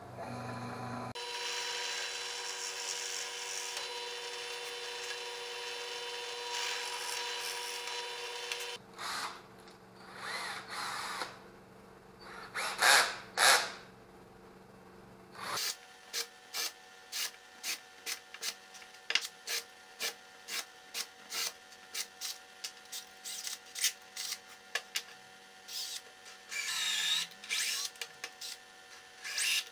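A benchtop drill press runs steadily while boring into plywood for several seconds. Then a cordless drill/driver whirs in short bursts that rise and fall in pitch as it drives screws into a plywood block, followed by a long run of quick, sharp clicks and one more brief whir of the drill near the end.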